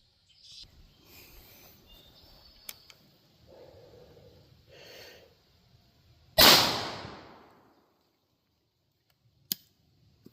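A single shotgun shot fired from a New England Arms shotgun with a barrel just over 18 inches, loaded with double-aught buckshot. It goes off about six seconds in, with a tail that fades over about a second and a half. A sharp click follows about three seconds later.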